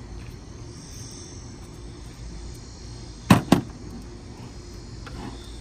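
Two sharp clicks a quarter second apart, about three seconds in, over a steady low background hum.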